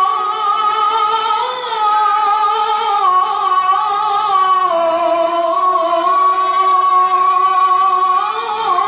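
A male qari chanting Quran recitation in the ornamented tilawah style, amplified through a microphone: one long held, high-pitched phrase that steps down in pitch twice and lifts briefly near the end.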